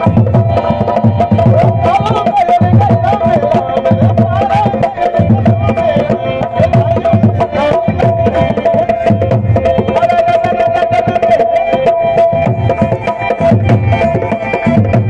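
Live Rajasthani folk music: a drum keeps a steady, repeating beat under a wavering melody.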